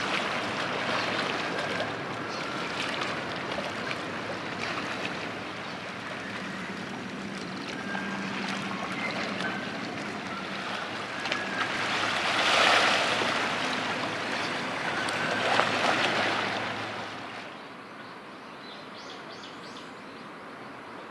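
Outdoor harbour ambience: a steady noisy wash over a faint low hum, swelling louder twice around the middle. It drops quieter near the end, where a few faint bird chirps come in.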